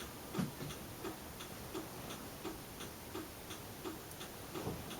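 A Saturn car's turn-signal flasher clicking steadily, about three ticks every two seconds, with the right turn signal switched on.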